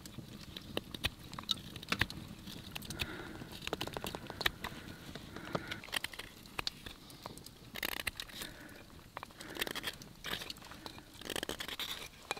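A small curved knife carving out the bowl of a fresh wooden spoon: a run of short scraping cuts and sharp clicks as the blade shaves the wood, coming in bursts.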